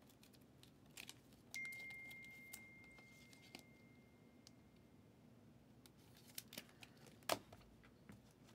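Faint rustles and light clicks of a trading card being slid into a clear plastic sleeve and holder, with a sharper click near the end. A single high tone starts about a second and a half in and fades out over a few seconds.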